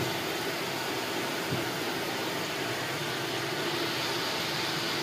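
Jacuzzi tub running: a steady rushing noise of its pump and water jets, with a faint knock about a second and a half in.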